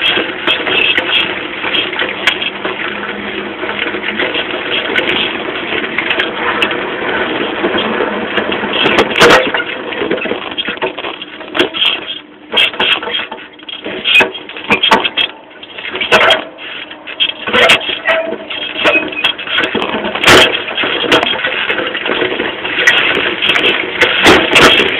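A bicycle fitted with hydraulic motocross rear shocks being ridden over rough ground: a steady rushing rattle with many sharp knocks and clicks as the wheel and suspension take bumps. It turns more broken and uneven between about twelve and seventeen seconds in.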